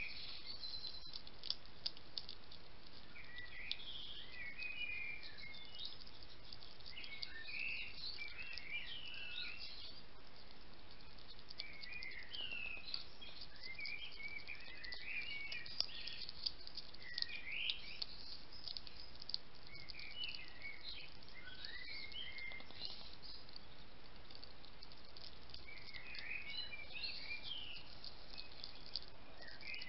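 A hedgehog crunching and chewing dry food from a dish: irregular bouts of small crisp clicks and squeaky chewing sounds, with short pauses between bouts, over a faint steady hiss.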